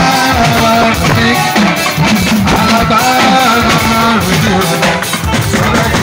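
Live band music: electric guitar and electronic keyboard over a drum kit beat, with a voice singing.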